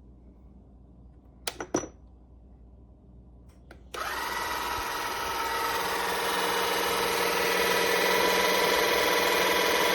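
A few sharp clicks, then about four seconds in an electric car jack's motor starts and runs steadily with a whine.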